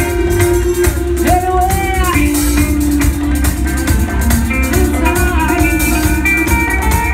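Live band music with drums and bass guitar playing a steady beat, heard from the audience in a small club.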